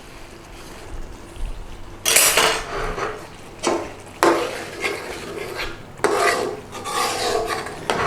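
Metal kitchen utensils scraping and clanking against a metal pan or tin. Three sharp clanks fall about two seconds apart, with rasping scrapes between them.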